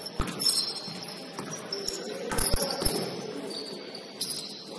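Basketball shoes squeaking on a gym court: several short, high squeaks, mixed with a few dull thuds from footsteps and the ball.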